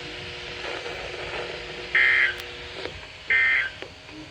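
EAS/SAME digital data bursts from a weather radio broadcast: two short, raspy, buzzing bursts about 1.3 s apart. They are the end-of-message code sent as a severe thunderstorm warning finishes. A faint steady hum lies under them in the first few seconds.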